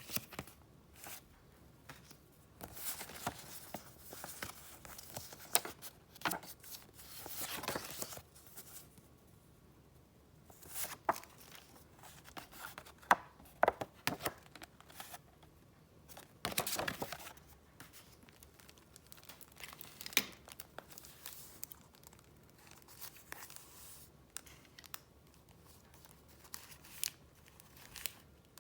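Paper and wrappings handled by hand, rustling and crinkling in irregular bursts with short sharp clicks and taps between them.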